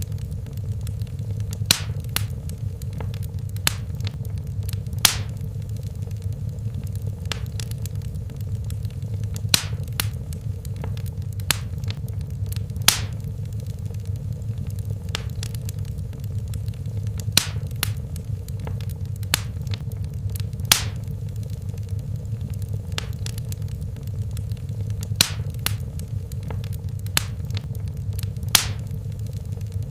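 Wood fire burning in a fireplace: a steady low rumble of flame with sharp crackles and pops at irregular intervals, roughly every one to two seconds.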